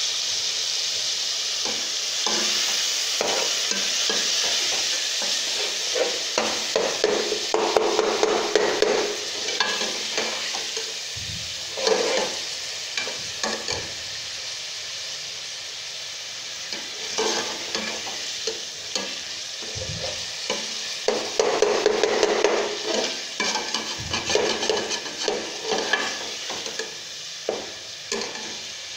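Minced meat and onions sizzling as they fry in oil in a metal pot, being browned. A steel ladle stirs and scrapes against the pot in bouts, loudest about a quarter of the way in and again past two-thirds, with occasional clicks of the ladle on the rim.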